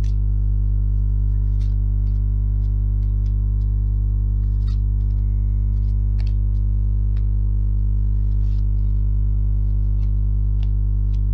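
Steady electrical hum at one constant low pitch with a ladder of overtones, with faint scattered clicks over it.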